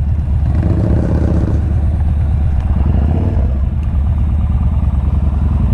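Yamaha Bolt's air-cooled V-twin engine running steadily at low revs, a loud, lumpy low pulse.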